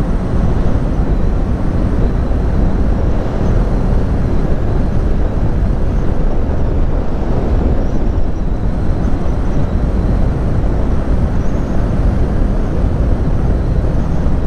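Suzuki GSX-S750 inline-four motorcycle cruising steadily at highway speed: loud, even wind rush over the microphone, with the engine running steadily underneath.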